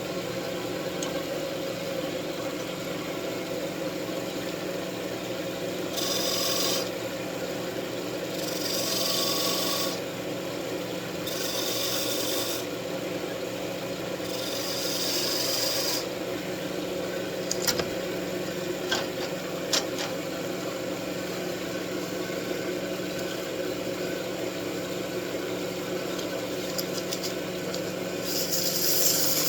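Wood lathe running with a steady hum while the spinning wooden wand is worked in several short hissing, scraping passes, with a few sharp clicks about two-thirds of the way through.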